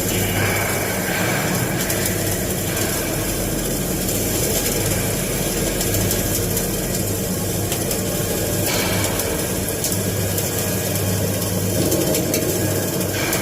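Flux-cored arc welding on a galvanized steel pipe: a steady, continuous crackle of the arc over a low electrical hum.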